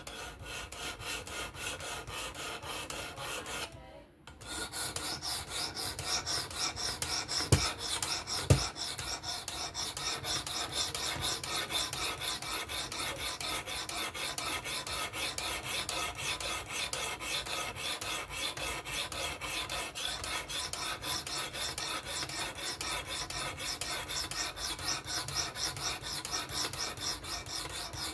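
Sharpening stone on a fixed-angle sharpener rasping back and forth along a steel knife edge in quick, even strokes. The strokes stop briefly about four seconds in, and two sharp clicks come near the eight-second mark.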